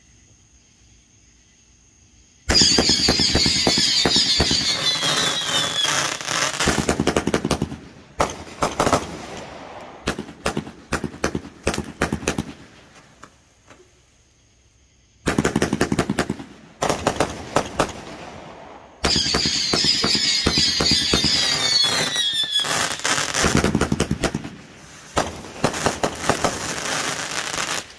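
Aerial fireworks firing in rapid volleys: dense pops and crackling mixed with falling whistles. The first volley starts after a couple of quiet seconds and runs about ten seconds, then after a short lull and a few separate bursts a second volley fires to the end.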